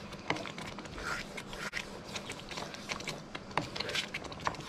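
Wooden spoon stirring thick chicken coconut curry in a wok and scraping the bottom of the pan so the paste doesn't stick: irregular soft scrapes and clicks.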